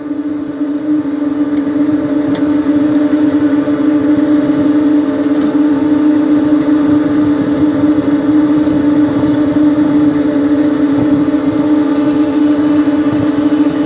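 An engine running steadily at a constant speed, giving a loud, unchanging drone over a rough rumble.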